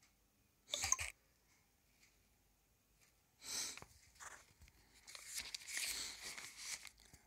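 Handling noise: a short rustle about a second in, then a longer stretch of irregular rustling and scraping from about three and a half seconds until near the end.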